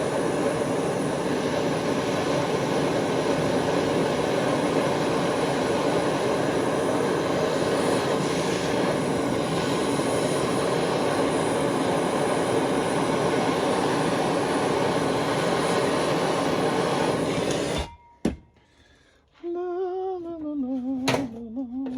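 Handheld gas torch burning with a steady roar while it heats thin 16-gauge steel red hot, shut off abruptly about eighteen seconds in. A few light clicks follow, and a man hums a tune near the end.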